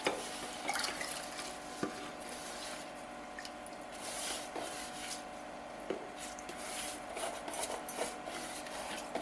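Soaked foxtail millet and moong dal, with their soaking water, poured and scraped from a bowl into a cooker pot: soft wet sloshing and squishing, with a few light knocks.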